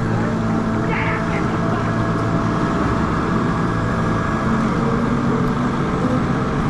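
Heavy wind noise buffeting the camera microphone on a moving electric motorcycle: a steady, loud low rumble.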